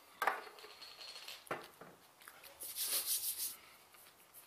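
Brown glass beer bottle handled and set down on a table, with a sharp knock just after the start and another about a second and a half in, then about a second of hiss near the end.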